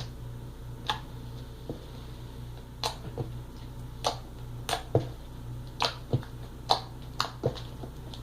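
Slime being worked by hand, giving a series of sharp, irregular pops and clicks, about a dozen over several seconds.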